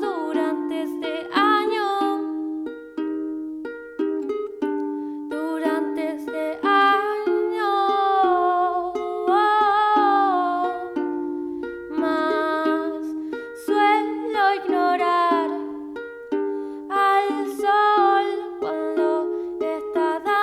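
Live song performance: a small plucked string instrument strummed steadily, under a high sung melody in phrases that drop out for a moment early on while the strumming carries on.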